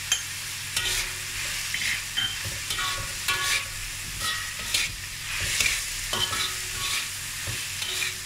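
Stir-frying in a metal wok: diced vegetables and mushrooms sizzle in oil while a metal spatula scrapes and knocks against the pan every second or so, some strokes leaving a short ring.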